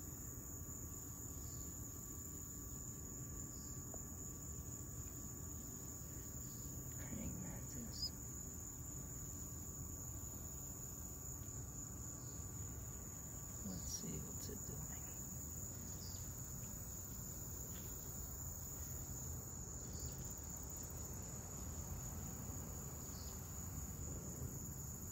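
Insects trilling steadily in one continuous high-pitched note, over a low steady background hum, with a few faint short chirps.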